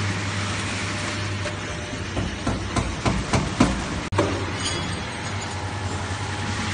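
Automatic sachet water filling and sealing machine running: a steady hum and hiss, with a run of mechanical clicks and knocks, about three a second, in the middle.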